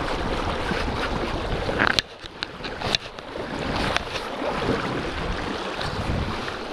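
Shallow river current rushing over stones, with wind on the microphone. The level drops suddenly about two seconds in, and a few sharp clicks come around then.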